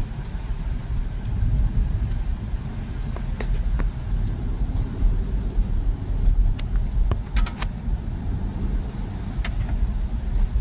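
A car driving on a wet road, heard from inside the cabin: a steady low engine and road rumble, with scattered light ticks and clicks.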